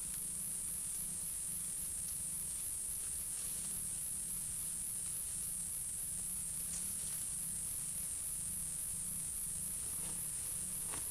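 Insects chirping in a continuous high-pitched chorus that pulses evenly, about three times a second, over a steady low hum.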